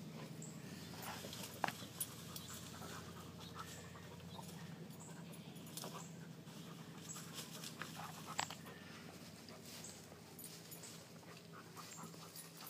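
A dog pushing through a pile of freshly cut leafy tree branches as it sniffs out a hidden ball: leaves rustling and twigs cracking, with a couple of sharper snaps, and the dog panting.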